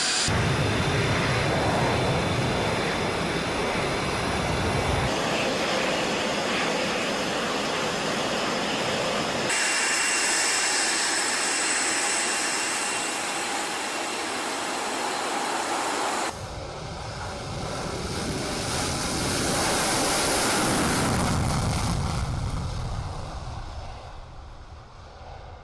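F-22 Raptor's twin Pratt & Whitney F119 turbofan jet engines running: a steady roar with a high-pitched whine, in several abruptly joined segments. In the last part the roar swells and then fades away.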